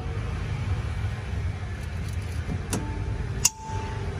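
Steady low rumble, with two sharp clinks about three quarters of a second apart near the end; the second is the louder and rings on one note for a moment.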